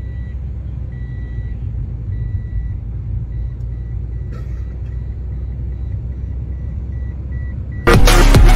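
Car cabin on the move: a steady low road and engine rumble, with a dashboard warning chime beeping over and over, its beeps getting shorter and quicker as it goes. Loud electronic music cuts in near the end.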